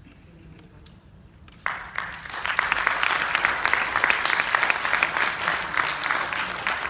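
Audience applauding, breaking out suddenly about a second and a half in and then keeping up a steady, dense clatter of claps.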